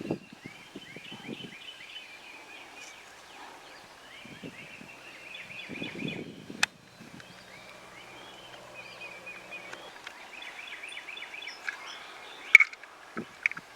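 Songbirds chirping in short repeated phrases in spring woods, with leaves rustling and gear being handled at the start and around six seconds in. A sharp click follows just after that, and a louder sharp sound comes about a second before the end.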